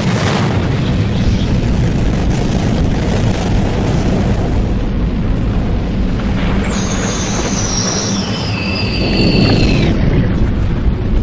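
Cinematic background soundtrack: a loud, dense rumble over a steady low drone, with a high whistling tone that glides slowly downward for about three seconds in the second half.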